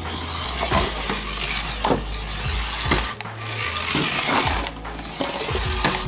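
Toy remote-control car's small electric motor and plastic gears running with a ratchety whir as it drives, broken by several sharp knocks.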